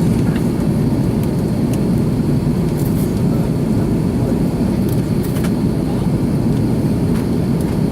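Steady low rumble of an Airbus A330-300's engines and airflow heard inside the passenger cabin in flight, with a few faint clicks about three and five seconds in.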